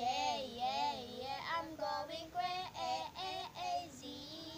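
Young girls singing a song without words being clearly sung: a wavering run of notes at the start, then a string of shorter notes, and a long held note near the end.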